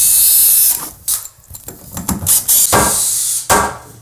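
Cordless drill-driver running for under a second, then several separate wooden knocks and taps as a temporary stud wall is taken apart.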